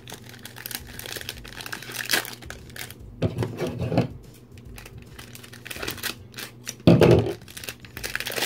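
A small packet of stickers being crinkled and torn open by hand. The rustling runs throughout, with two louder bursts about three seconds in and near seven seconds.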